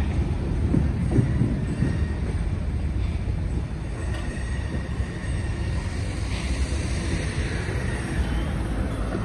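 Freight train's cars rolling away over the track with a steady low rumble and a few wheel clicks in the first couple of seconds, easing off somewhat after about three seconds.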